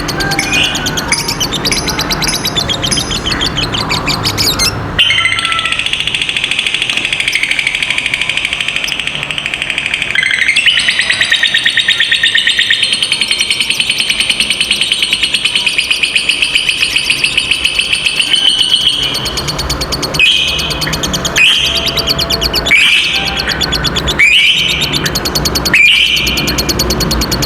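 Lovebirds calling: a few sharp calls, then a long rapid chattering trill lasting about fourteen seconds (the 'ngekek panjang' that keepers prize), then single sharp chirps about once a second near the end.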